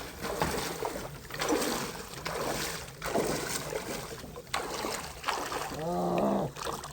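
Kayak paddle strokes through the water, a swish and splash about once a second. A short voice sound comes about six seconds in.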